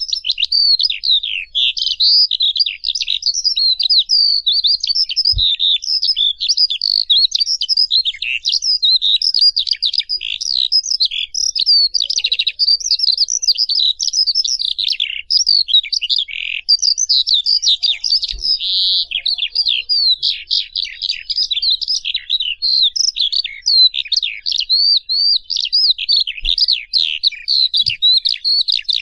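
Dense chorus of many small birds chirping and twittering without a break, lots of short quick chirps overlapping. A few brief low thumps come through underneath.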